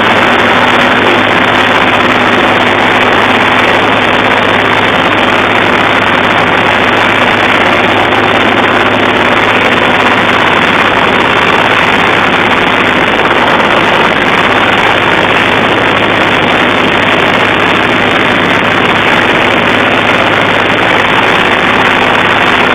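Zetor 3511 tractor's three-cylinder diesel engine running steadily and loud, close up, as the tractor drives along.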